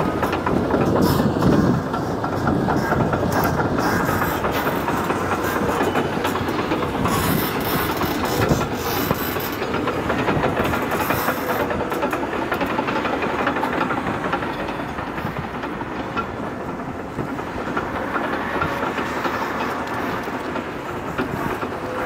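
Caterpillar D6 crawler bulldozer working close by: its diesel engine running under load, with a steady clatter from its steel tracks as it pushes dirt and trash.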